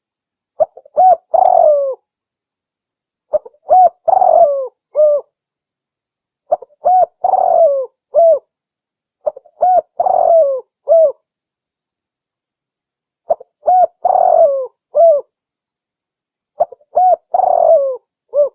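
Spotted dove cooing six times, each phrase a few short coos around one longer middle coo, about every three seconds. It is a lure call meant to draw the species in.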